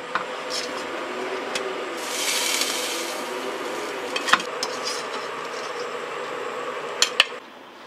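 Blanched cured pork ribs being moved into a pressure cooker: a few sharp clinks against the pot over a steady kitchen hum, with a brief hiss about two seconds in.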